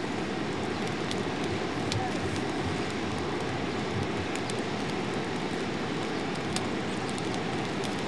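Coal fire in a small homemade furnace burning with a steady rush and scattered sharp crackles.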